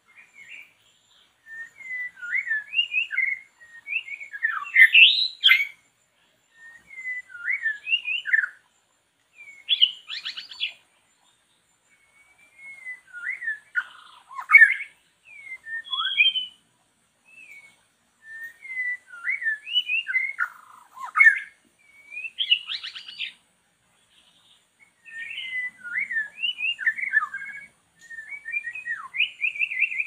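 A songbird singing rapid, varied whistled phrases in short bursts, with brief pauses between them.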